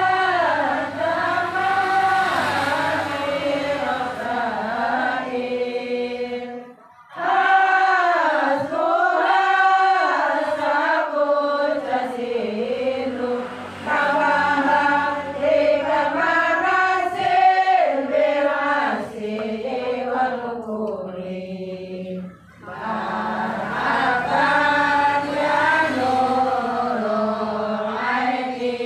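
Voices chanting Arabic Maulid devotional verses in long, ornamented melodic phrases, one melody line with short breaks for breath about 7, 12 and 22 seconds in.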